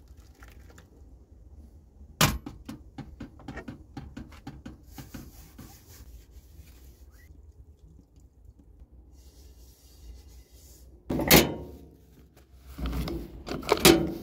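Plates and dishes clattering and clinking while being washed up in a collapsible plastic bowl, with a sharp knock about two seconds in and a run of small clicks after it. A loud thump comes about eleven seconds in, followed by louder handling noise.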